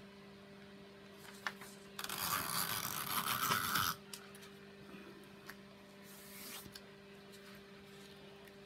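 Paper being slid and lifted on a cutting mat: one scraping rustle lasting about two seconds, over a steady low hum.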